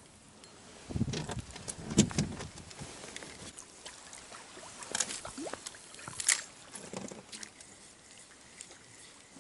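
Water splashing and sloshing at the side of a small boat, with scattered knocks and clicks, the loudest about two seconds in, as a small hooked fish is brought up to the boat.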